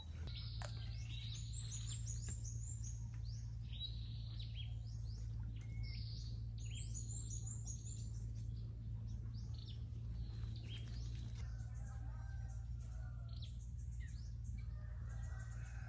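Small birds chirping and singing in quick, high, falling calls, busiest over the first ten seconds or so and sparser after that, with a low steady hum underneath.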